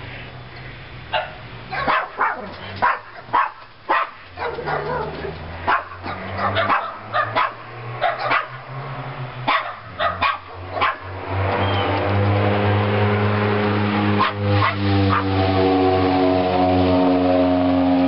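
A dog barking repeatedly in short, sharp barks. About halfway through, a steady low hum comes in and runs on under the barking.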